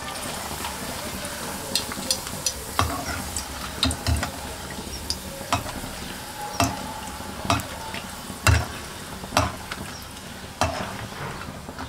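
Oil sizzling as a flat piece of dough fries in a shallow pan, with sharp taps about once a second as a metal slotted skimmer and fork turn it against the pan.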